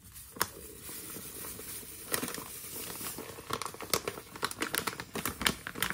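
Bag of muffin mix crinkling and rustling as the powder is shaken out of it into a stainless steel mixing bowl, with many sharp crackles throughout.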